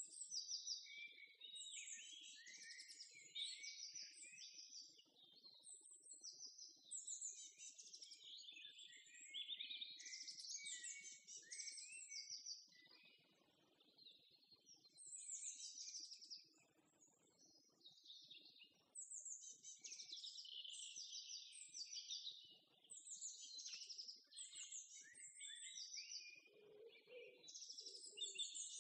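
Small birds chirping and singing, a dense run of quick repeated high chirps with a couple of short lulls; faint.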